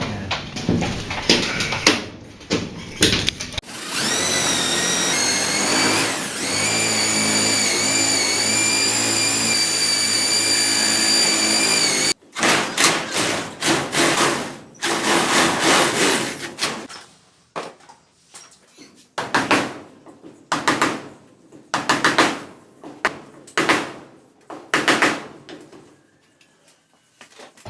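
Electric drill boring a hole through a plywood wall panel. It runs with a steady whine for about eight seconds, the pitch climbing as it starts, then stops abruptly. A long series of short bursts and knocks follows.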